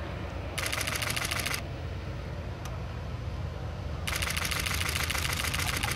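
Douglas AD-5W Skyraider's Wright R-3350 radial engine running low and steady, throttled back for landing. Two bursts of rapid clicking sit over it: one of about a second, then a longer one starting about four seconds in.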